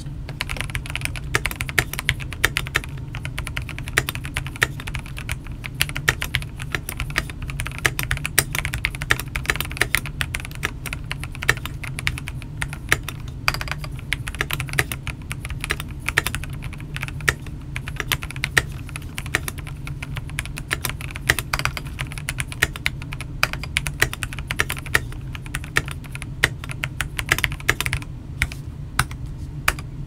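Continuous typing on a stock Fancy Tech 081, a 75% gasket-mounted mechanical keyboard with linear switches and an aluminum plate: a steady, uneven stream of key clacks, a little muted, over a low steady hum.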